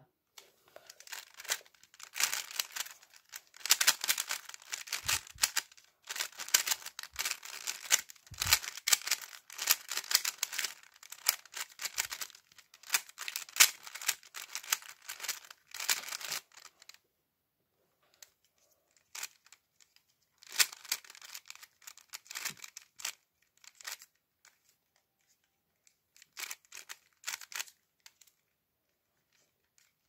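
GAN speedcube being turned by hand: rapid plastic clicking and clacking of the layers as they turn, in a dense continuous run for the first half, then shorter flurries of turns with pauses between them.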